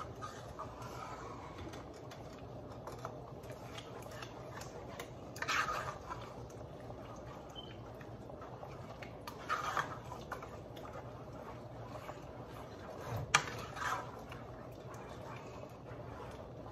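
Ground beef in tomato sauce being stirred in a frying pan: three short bouts of wet scraping and squelching, and one sharp tap of the utensil on the pan about thirteen seconds in.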